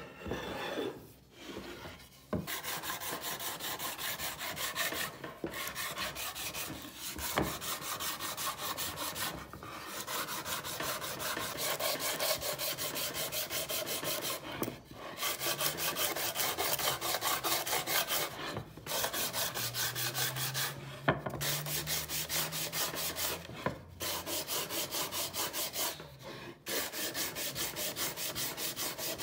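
Hand sanding: sandpaper wrapped around a wooden block rubbed in quick back-and-forth strokes against a round wooden board and its edge. The sanding comes in runs of a few seconds broken by short pauses.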